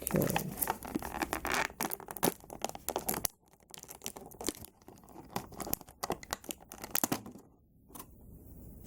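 Plastic and cardboard action-figure packaging being torn and crinkled open by hand: a dense run of crackling and tearing, then sparser crinkles and clicks for a few seconds before it goes quiet.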